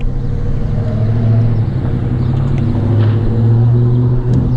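Steady low motor hum with a few overtones, over a low rumble, cutting off shortly before the end.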